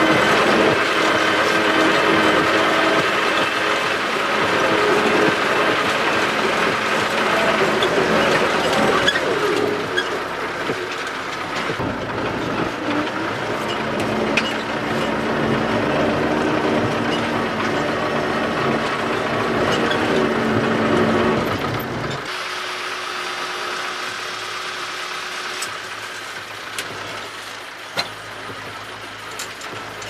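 MTZ-82 tractor's four-cylinder diesel engine running under way, heard from inside the cab, with scattered clicks and knocks of the cab rattling. About 22 seconds in the engine note drops and becomes quieter.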